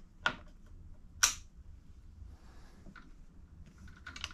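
A few sharp metal clicks from an adjustable locking spanner being worked on a fitting of a mountain-bike fork as it is tightened snug, the loudest about a second in.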